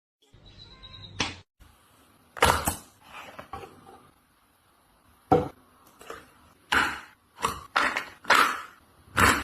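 An irregular series of sharp knocks and clattering hits, about a dozen in all, coming closer together in the second half.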